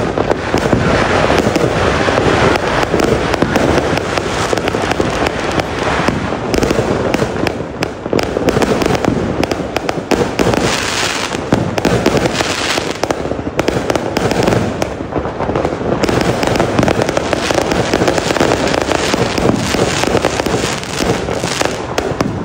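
Fireworks going off nonstop: many aerial shells bursting and crackling at once, a dense, unbroken barrage of bangs and pops.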